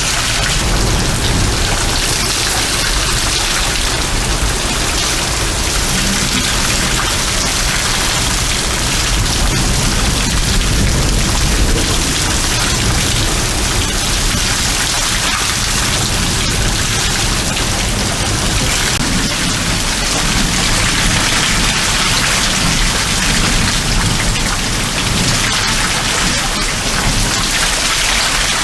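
Heavy thunderstorm rain pouring down steadily, with water running off a roof.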